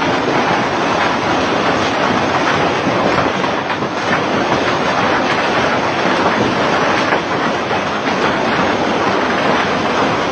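Heavy rain pouring down and splashing on waterlogged ground: a loud, steady wash of countless drops pattering together.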